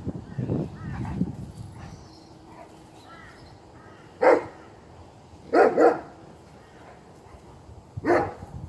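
Rottweiler puppy barking in short, sharp single barks: one about four seconds in, two in quick succession near six seconds, and one more near the end. A low rumbling sound fills the first two seconds.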